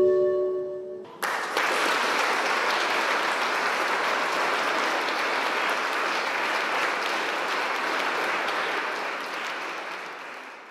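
The last held chord of a choir song cuts off about a second in, and the congregation breaks into steady applause, which fades out near the end.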